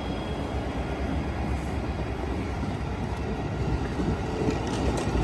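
Amtrak Coast Starlight passenger train rolling past at speed, a steady rumble of wheels on rail, with a few sharp clicks near the end.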